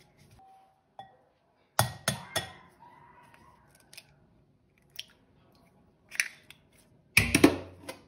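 Kitchen utensils and dishes clinking and knocking against each other in short clusters of sharp strikes: three quick strikes about two seconds in, a few more around six seconds in, and the loudest cluster near the end.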